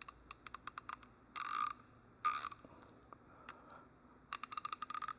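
Williams S-52EHLA 36-tooth 1/2-inch-drive ratchet clicking as it is worked back and forth. There is a run of separate pawl clicks, two short bursts of rapid clicking, and a quick run of clicks near the end.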